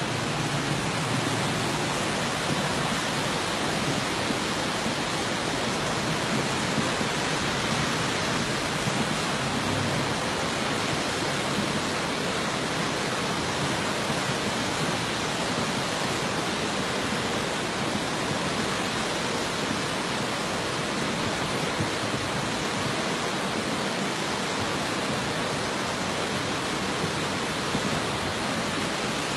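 Steady rush of fast-flowing floodwater, an even roar of torrent noise with no break or change.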